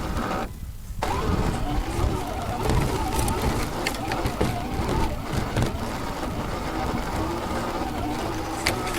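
Electric whine of an RC crawler's brushless motor and gear train, its pitch wavering up and down with the throttle over a rumble of the truck on rough ground. The audio briefly cuts out about half a second in.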